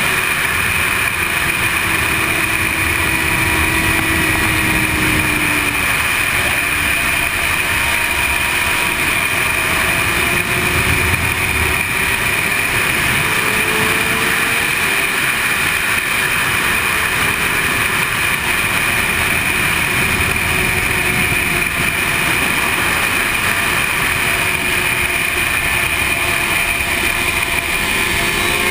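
Sport motorcycle at speed on a racetrack: a heavy, steady wind rush over the microphone, with the engine note faintly rising and falling beneath it through gear changes and corners, and climbing near the end as the bike accelerates.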